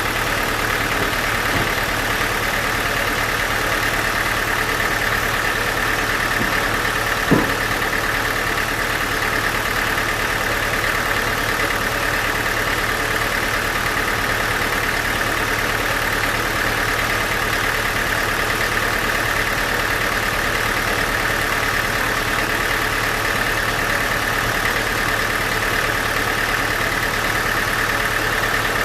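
Sawmill machinery running steadily with an even, unchanging drone. A single sharp knock comes about seven seconds in.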